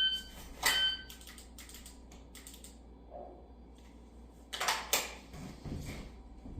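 Shot timer start beep followed about 0.8 s later by a second, par-time beep, with a sharp click of a pistol being drawn and dry-fired landing on it. Scattered light clicks follow, then a louder burst of clicks and rustling of movement near the end.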